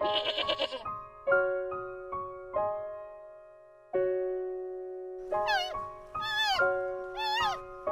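Piano music, with a sheep bleating once right at the start. From about five seconds in comes a run of four high, wavering calls, each falling in pitch, from a giant panda.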